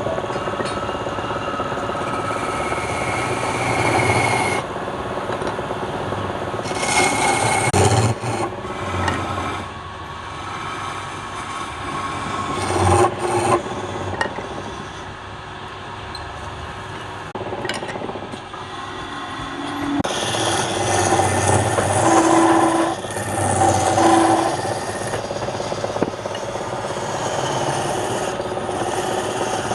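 Wood lathe running with a steady motor hum, while a tool scrapes against the spinning wood in bouts that rise and fall every few seconds.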